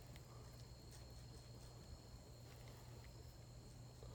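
Near silence: faint outdoor background with a steady low hum and a thin, steady high-pitched tone.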